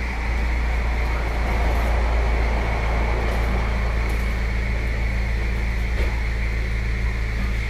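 A small electric motor running steadily: a low hum under an even rushing noise, with no change in pitch.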